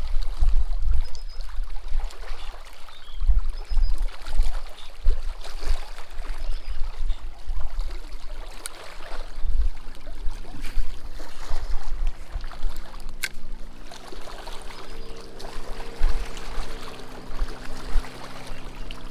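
Small waves lapping against the riprap rocks at the water's edge, with wind gusting on the microphone. Soft background music fades in about halfway through.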